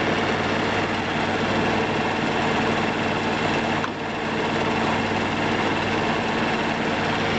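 Car engine idling with the A/C compressor engaged during a refrigerant charge: a steady running hum. The compressor runs a bit quieter now that its oil is circulating.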